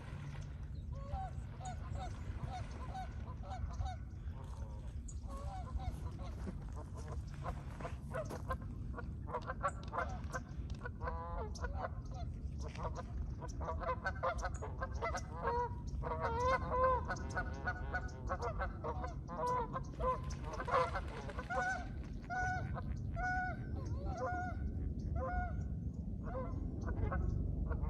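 Waterfowl honking over and over, several birds calling at once in the middle and a single evenly spaced series of honks near the end.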